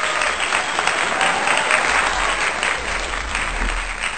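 A large crowd applauding: dense, steady clapping added to the video as a sound effect.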